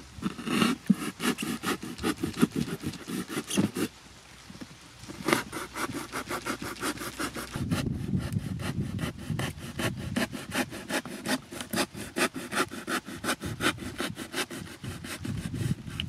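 Knife blade sawing through corrugated cardboard in quick back-and-forth strokes, with a short pause about four seconds in.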